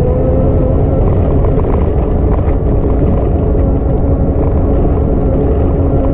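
Wind buffeting an action camera's microphone while riding a bicycle path, a loud steady rumble with a steady hum running underneath.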